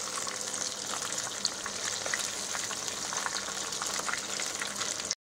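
Crumb-coated paneer pieces deep-frying in hot oil: a steady sizzle full of small crackles and pops. The sound breaks off for an instant near the end.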